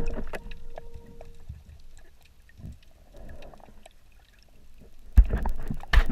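Underwater sound through an action camera's housing: faint scattered clicks after the tail of a steady music tone fades out in the first second and a half. Near the end come a couple of loud knocks and a rush of water.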